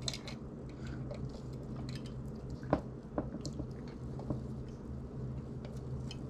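Faint mouth sounds of someone sipping sarsaparilla soda through a metal straw and tasting it: quiet smacks and small clicks, one sharper click a little under three seconds in, over a low steady hum.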